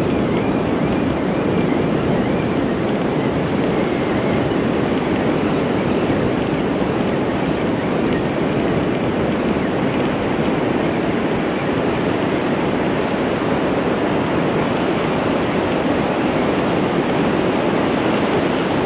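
Steady, even rush of sea surf breaking on the shore, with no distinct events in it.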